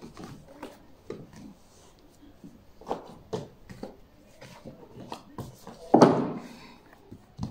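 Picture books being handled and set into a bookstand's display racks: scattered light taps and knocks of books against the shelves, with a louder knock and scrape about six seconds in.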